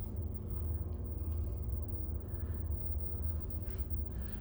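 Steady low rumble with a faint hiss, the background hum of a cruise ship cabin on its lowest passenger deck.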